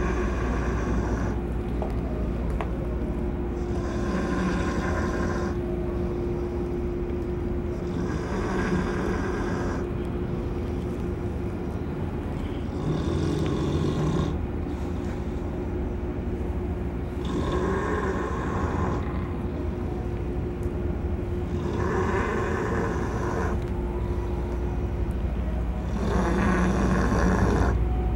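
Potbelly pig snoring: about seven slow, regular snoring breaths, roughly one every four to five seconds, over a steady low hum.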